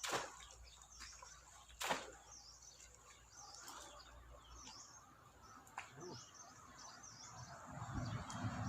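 Small birds chirping over and over, a few short high calls at a time. Two sharp knocks, one right at the start and one about two seconds in, with a low rumble building near the end.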